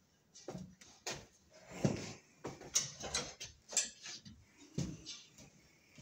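Scattered knocks, clicks and rustles of tools and materials being handled, irregular and unevenly spaced.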